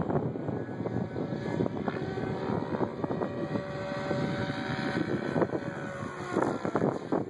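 SAB Goblin 770 electric RC helicopter flying overhead, its rotor blades chopping and whooshing with a whine that keeps sliding up and down in pitch as it manoeuvres.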